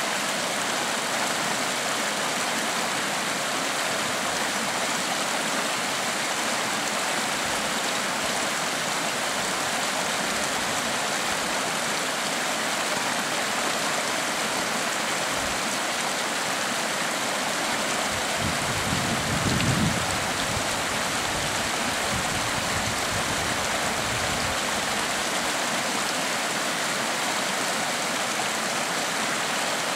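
Creek water rushing steadily over rocks, an even hiss of running water. About two-thirds of the way through there is a brief low rumble.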